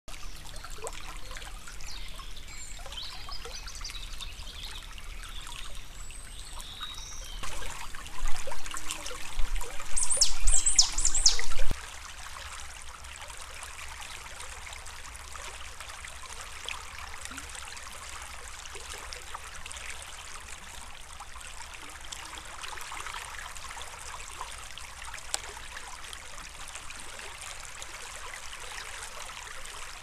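Small forest stream trickling steadily. Partway through, a louder, rougher noise lasts a few seconds, with a few high falling chirps, then cuts off abruptly.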